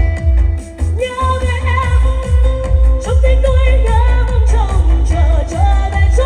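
Singing of a medley over a pop backing track, with long held notes that waver in pitch over a heavy, steady bass beat, played loud through a Titan 210 line-array PA system.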